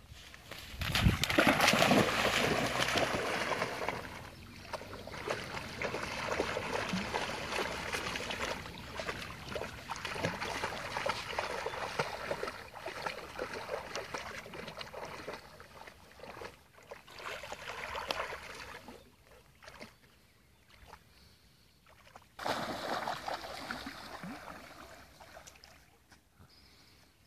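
Golden retriever wading and swimming through lake water, splashing and sloshing. A sharp splash about a second in opens the loudest stretch, and the splashing swells again twice near the end.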